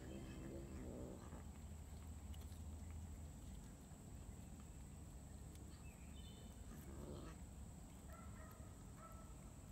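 Domestic cat growling low in two short spells, one at the start and one about seven seconds in, while it crouches over its catch: a warning to the nearby cats to keep off its food.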